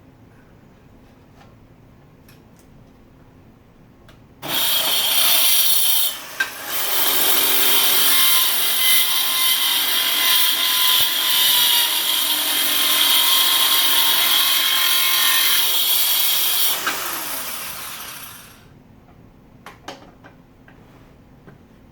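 Black & Decker Matrix circular saw attachment starting up about four seconds in, with a brief drop in level just after starting, then crosscutting wood for about twelve seconds. It then spins down with a falling pitch.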